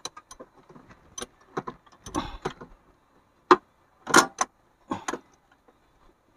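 Scattered metallic clicks and clinks of a hand tool working the injection pump bolts on a 4D56 diesel, loosening them to shift the pump's timing. One sharp click comes about three and a half seconds in, followed by a few quick clinks.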